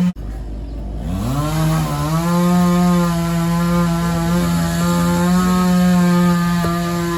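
Two-stroke chainsaw engine revving up from low to full throttle about a second in, then running steadily at high revs with slight wavers in pitch.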